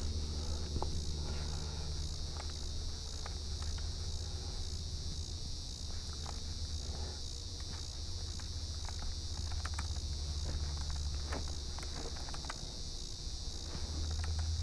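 A steady, high-pitched insect chorus of crickets or similar insects trilling without a break, over a constant low hum, with a few faint scattered ticks.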